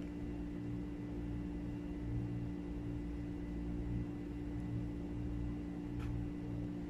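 Steady low machine hum of room background noise, with a fainter rumble underneath that swells and fades unevenly. There is a single faint click about six seconds in.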